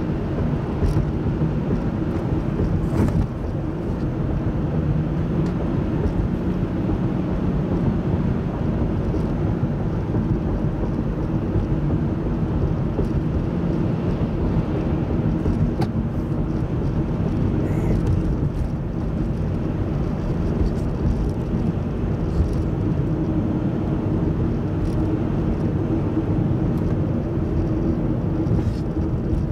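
A car's engine and tyre noise heard from inside the cabin while driving at a steady speed: a continuous low hum with faint engine tones, and a few light clicks.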